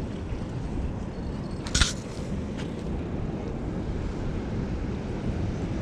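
Steady low wind rumble on the microphone, with one short, sharp noisy burst a little under two seconds in.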